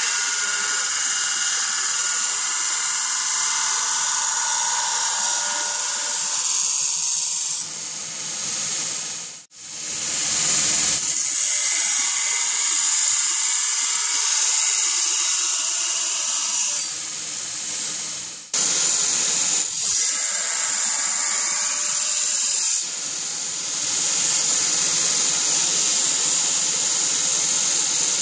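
Belt grinder running with a forged steel blade pressed against its abrasive belt: a steady, loud grinding hiss as the flat Scandinavian-grind bevels are ground. It drops out briefly about a third of the way in and breaks off suddenly about two-thirds through before resuming.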